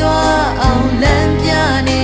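A woman singing a slow song in Burmese over a band accompaniment, holding long notes and sliding down in pitch at the end of two phrases.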